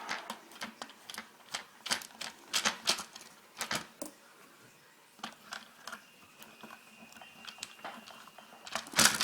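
Irregular clicks and taps of a screwdriver and small steel screws working on the plastic casing of an old house phone, with a faint thin squeak for a couple of seconds past the middle and louder clatter near the end.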